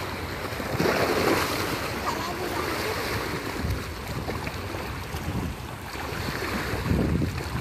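Small waves lapping and splashing against a muddy bank, with louder surges about a second in and near the end, and wind on the microphone.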